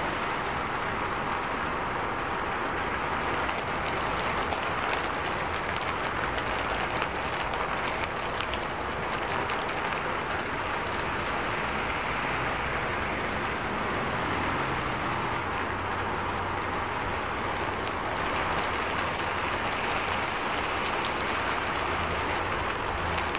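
Heavy rain falling with a steady, even hiss, with city traffic running beneath it.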